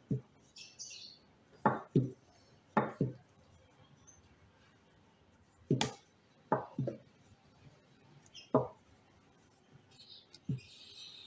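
Wooden rolling pin knocking against the board in short, sharp knocks, often two close together, every second or two, as a small round of dough is rolled out and turned.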